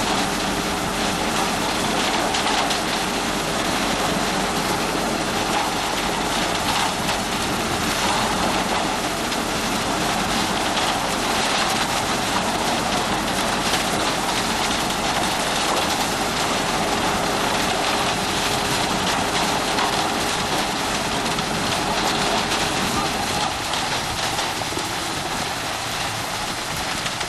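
Self-loading concrete mixer truck running steadily, its engine and rotating drum making a dense, even rushing noise with a faint steady hum that fades out near the end.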